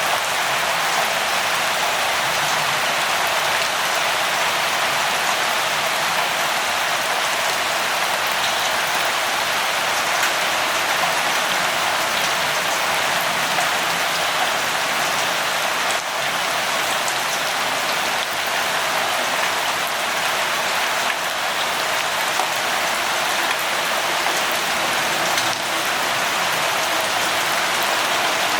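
Steady light rain falling, an even hiss of drops with a few faint taps scattered through.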